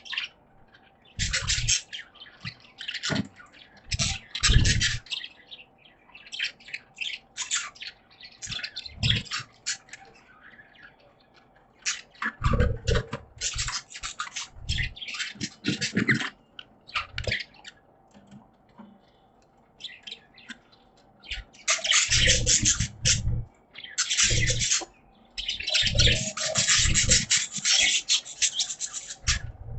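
Caged budgerigars chattering and chirping in repeated bursts of scratchy, high calls, with occasional low thuds among them; the chatter grows denser and more continuous near the end.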